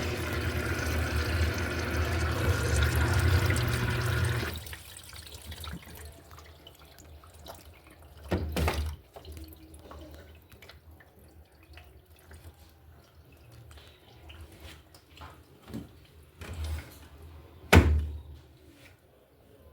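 Electrolux LED14 washing machine filling with water, the inlet running steadily with a low hum until it cuts off suddenly about four and a half seconds in. After that there are faint drips and small sounds, with two short knocks, the louder one near the end.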